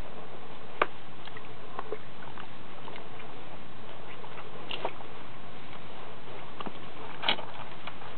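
Soaked open-toe suede shoes and socks shifting in a shallow puddle: a few brief splashes and squelches, seconds apart, over a steady hiss.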